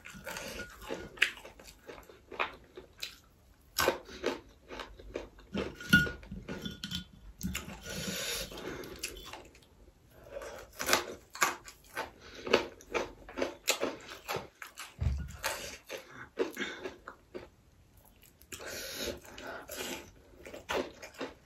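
Close-miked chewing and lip smacking of a person eating fried duck with her fingers: irregular smacks and clicks, with a short lull a few seconds before the end.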